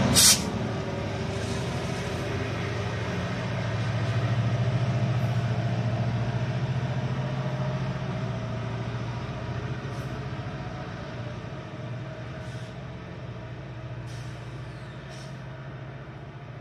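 EMD 710 diesel prime mover of a GO Transit MP40PH-3C locomotive running under power as the train departs. Its low drone swells about four seconds in and then fades as the train moves off. There is a short sharp burst of air hiss right at the start.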